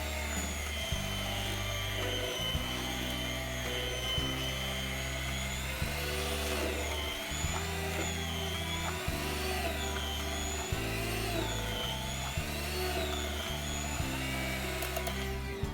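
Background music with a steady low bass line, over an electric hand mixer's motor whining as it beats a cream cheese pie filling, its pitch dipping and rising again and again as the load changes.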